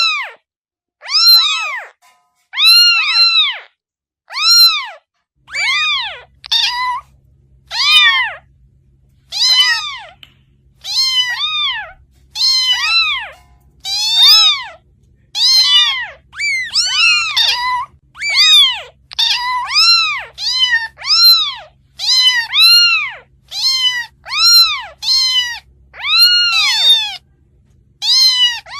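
Kitten meowing over and over in high mews that rise and fall in pitch. They come about once a second at first, then quicker and overlapping in the second half.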